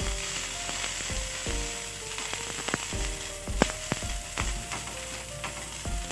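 Green bell pepper strips sizzling in a nonstick frying pan, stirred with a spatula that clicks and scrapes against the pan now and then.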